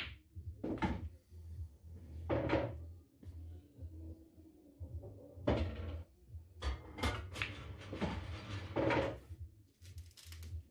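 Pool shots on a pool table: sharp clicks of the cue ball striking object balls, and balls dropping into the pockets and clattering away inside the table, in a string of separate knocks over several seconds.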